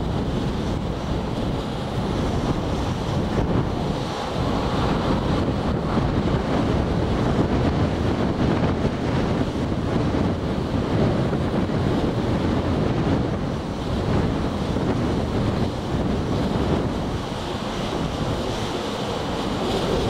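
Blizzard wind blowing hard and steadily, buffeting the microphone with a continuous low rushing noise.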